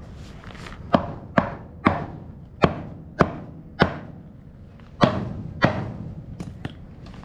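A mallet striking a wooden board, knocking it down to set it level: six blows about half a second apart, a short pause, then two more and a couple of light taps near the end.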